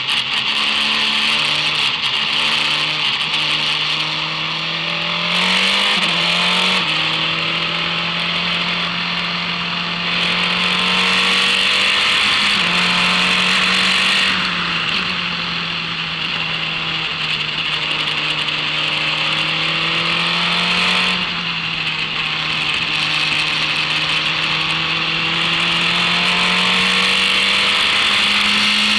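Formula race car engine running hard at speed, its revs climbing and then dropping back with each gear change, over a steady rush of wind and road noise.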